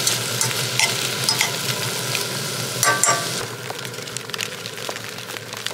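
Pepperoncini and other breakfast food sizzling in a frying pan, with a utensil clicking and scraping against the pan as it is stirred. The sizzle turns quieter about three and a half seconds in.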